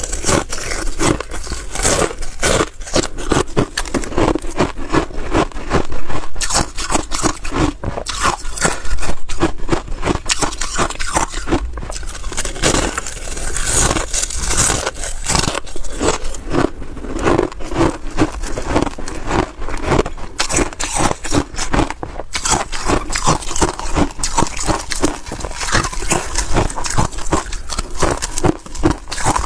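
Thin, brittle balloon ice being bitten and chewed close to the microphone: a dense, continuous run of sharp crunches and crackles as the sheets snap.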